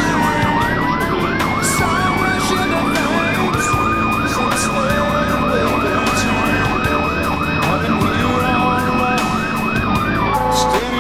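Fire truck sirens heard from inside the cab on an emergency run: an electronic siren yelping fast, about three sweeps a second, over a steadier siren tone that dips and rises near the start and stops near the end. The truck's engine and road noise run underneath.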